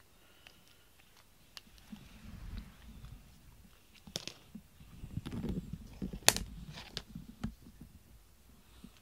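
Handling and rustling noise with several sharp clicks and knocks, the loudest a little past the middle.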